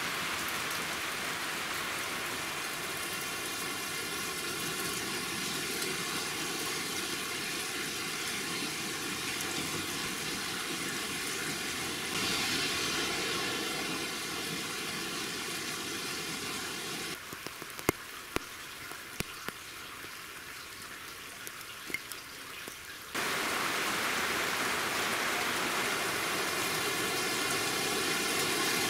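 Rain falling steadily: a continuous even hiss. The level steps up or down sharply at a few cuts, and in a quieter stretch past the middle a few single sharp ticks stand out.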